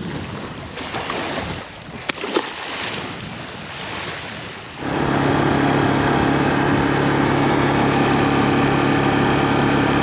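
Waves and wind on the microphone, then about five seconds in a vehicle engine cuts in abruptly and idles steadily.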